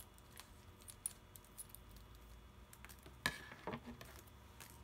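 Scissors cutting open a small sachet of slime-activator powder, with light snips and crinkles of the packet, then a sharp knock about three seconds in as the scissors are put down on the wooden desk, followed by a couple of softer knocks.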